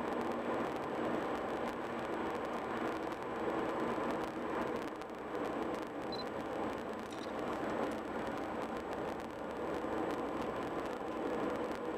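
Steady road and engine noise of a car driving on a highway, heard from inside the cabin. A brief faint high tone sounds about six seconds in.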